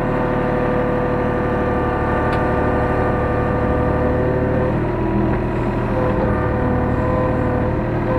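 Hyundai R35Z-9A mini excavator's diesel engine running steadily, heard from inside the cab, with several steady tones whose pitch shifts a little about five seconds in.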